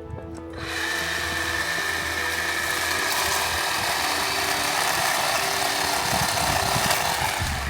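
Chainsaw running steadily, a high buzzing whine with a hiss, coming in about half a second in, over background music.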